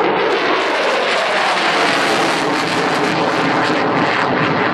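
Polish Air Force F-16 Jastrząb's Pratt & Whitney F100 turbofan jet passing overhead in a fly-by: a loud, sustained jet rush with a whine that falls in pitch as it goes by.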